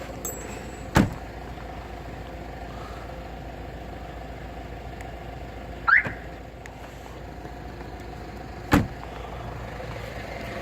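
Remote locks and alarm of a VAZ-2107 worked from the alarm key fob: two sharp lock clicks, about a second in and near the end, and a short rising alarm chirp around the middle, over a steady hum.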